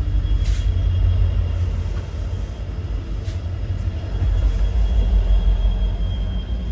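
A train passing close by, a heavy steady rumble of its cars on the rails, with a sharp clack about half a second in and another about three seconds in and a thin high whine held through most of it.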